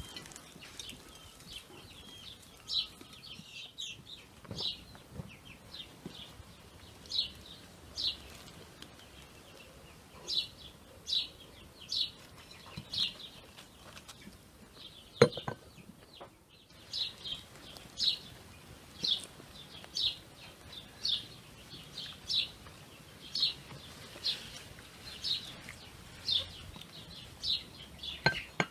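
A bird calling over and over in short, high chirps, about one a second. A single sharp click sounds about halfway through.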